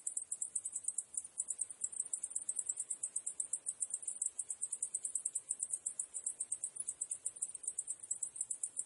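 Cicadas calling in a steady high-pitched chorus that pulses rapidly, about eight to ten pulses a second.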